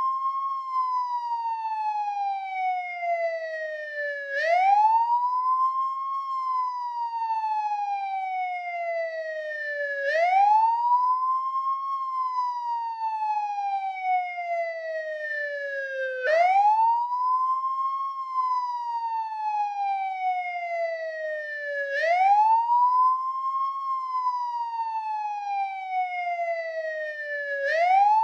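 American police car siren sounding its wail tone: a pitch that climbs quickly, then falls slowly, repeating about every six seconds.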